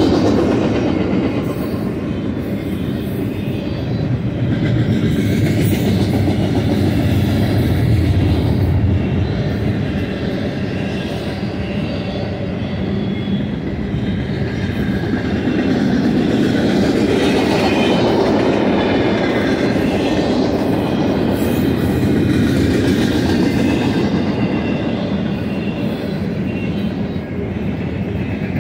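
BNSF double-stack container train's loaded well cars rolling past: a steady rumble of wheels on rail that swells and eases gently. A faint high wheel squeal comes in around the middle.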